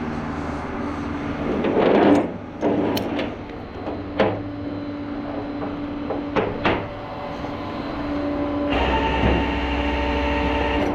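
A truck engine idles steadily, with several sharp metal clanks and knocks over the first seven seconds. About nine seconds in, a deeper, louder drone with a steady whine joins it.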